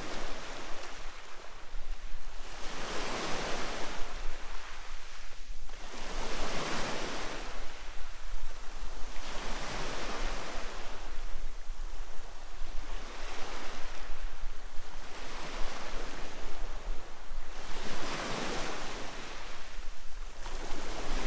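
Small sea waves breaking and washing up on a pebble shore, each wave swelling and fading, one about every three to four seconds.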